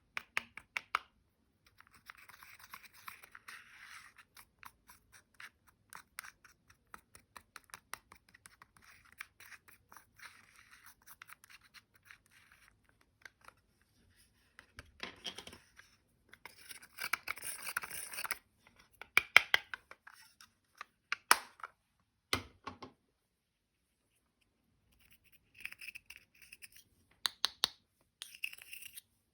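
Slime being squeezed and mixed by hand, making dense runs of sticky clicks and crackling pops. A louder run comes in the middle, and there is a short pause near the end.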